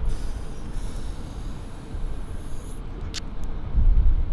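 Car driving with steady road and wind rumble. There is a single short click about three seconds in, and the rumble grows louder near the end.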